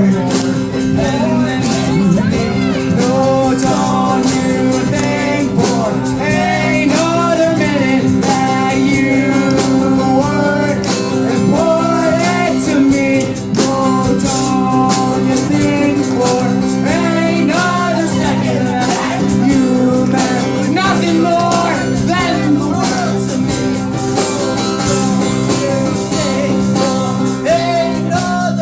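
A band playing a guitar-backed song, with a melody line bending up and down over steady held chords.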